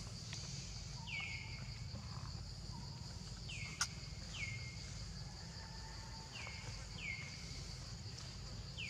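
Steady high insect buzzing with short falling chirps, often in pairs, recurring every second or two, and one sharp click about four seconds in.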